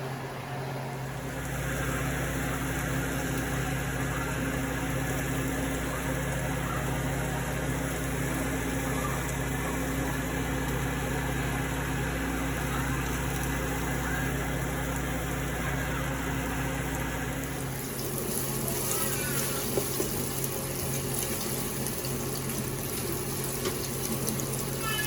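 Chicken and steak sizzling in a skillet with soy sauce, a steady frying hiss under a low electrical hum; about eighteen seconds in the hum stops and the sizzle turns crackly, with many fine pops.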